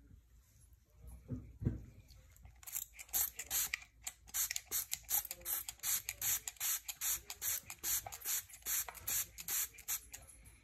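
A trigger spray bottle of wound-care spray pumped rapidly, giving a long run of short hisses about three or four a second, starting a few seconds in.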